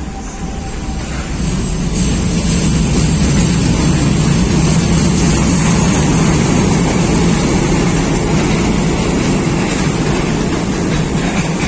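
A vehicle's steady loud rumble, building over the first two seconds, holding level, and easing slightly near the end.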